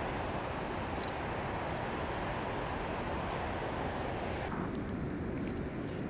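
Steady rushing of mountain water from a waterfall and stream, with a few faint clicks. The hissing top of the sound falls away suddenly about four and a half seconds in, leaving a duller rush.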